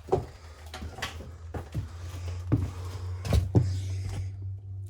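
Half a dozen irregular knocks and thumps, like steps and handling on old boards, over a steady low hum.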